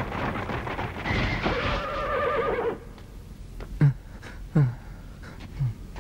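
Horse whinnying with a wavering, falling call over a clatter of hooves, which cuts off about three seconds in. Then come three short, low grunts, each falling in pitch.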